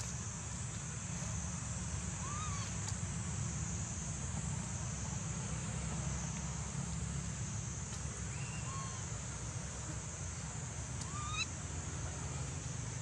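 A monkey giving three short calls a few seconds apart, each rising then falling in pitch, over a steady low rumble and a constant high hiss.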